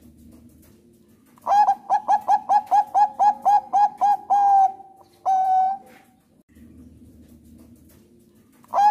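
Zebra dove (Thai 'perkutut bangkok') singing. After a pause there is a quick run of about a dozen short coos, roughly five a second, ending in a longer held note. A second long coo follows a moment later, and the next phrase begins right at the end.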